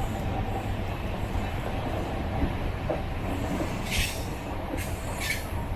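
An LHB sleeper coach running on the rails, with a steady low rumble. Two brief high-pitched squeals come about four and five seconds in.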